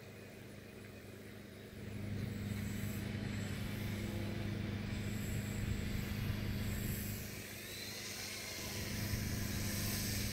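Electric pusher motor and propeller of a ReadyMadeRC Anaconda RC plane taxiing across grass. The motor hum swells about two seconds in, eases briefly near eight seconds, then rises again.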